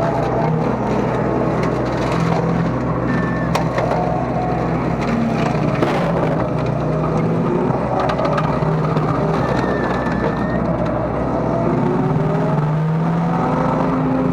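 Mini excavator's engine and hydraulics running steadily under load while driving a home-built slasher attachment through brush, the pitch wavering a little as the load changes. Scattered sharp cracks and snaps come through over the machine noise.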